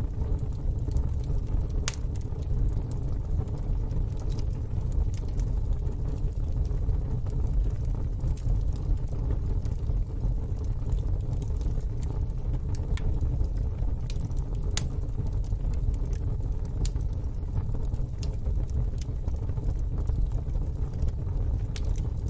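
Fire burning in a fire pit: a steady low rumble of flames with scattered sharp crackles and pops at irregular intervals.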